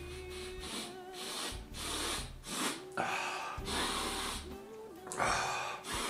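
A man sniffing hard through his nose over and over, with about eight long noisy inhales broken by short pauses, as he smells used underwear held to his face.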